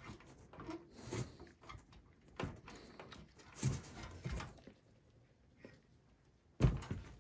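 Scattered light clicks and knocks of gloved hands handling a desktop motherboard in its sheet-metal small-form-factor case, with one louder knock near the end.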